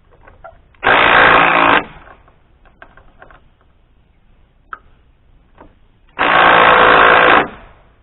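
A power impact wrench hammering nuts tight onto column anchor bolts in two loud bursts, one about a second in and a longer one near the end, with small clicks of handling between them.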